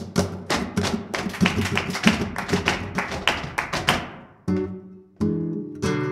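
Flamenco guitar playing a seguiriya: a run of fast, sharp strummed strokes for about four seconds that dies away, then single ringing notes.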